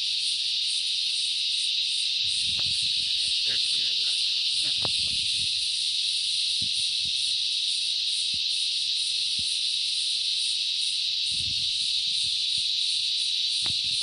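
Dense, steady chorus of insects trilling high and continuously at dusk. A few sharp crackles from a small wood fire of twigs and sticks pop out of it here and there.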